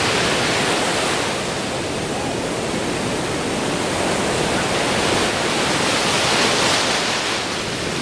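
Rough ocean surf breaking and churning foam rushing up the shore, a dense, steady wash that swells and eases a little. The sea is whipped up by storm, with waves about 3 metres high.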